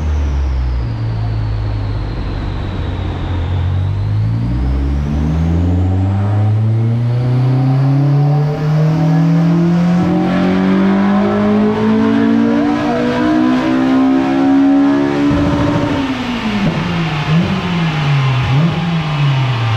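K20-swapped Honda Civic's four-cylinder engine making a full-throttle power run on a chassis dyno. It holds low revs for a few seconds, then climbs steadily for about twelve seconds alongside a rising high whine. It comes off the throttle sharply about fifteen seconds in, and the revs then rise and fall repeatedly.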